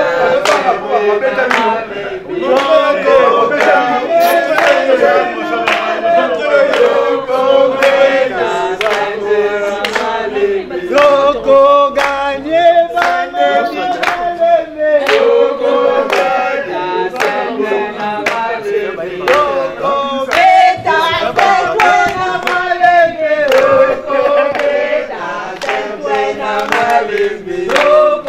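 A mixed group of men and women singing together, accompanied by steady rhythmic hand clapping.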